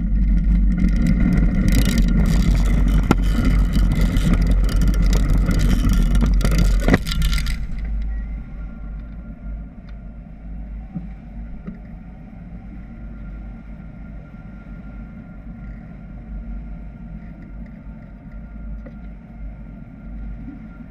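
Hang glider launch cart rolling and rattling over a dirt track during a tow launch, with heavy wind rush and many sharp knocks, loud for about seven and a half seconds. Then the rattle cuts off as the glider lifts off the cart, leaving a quieter steady rush of air with a faint steady tone.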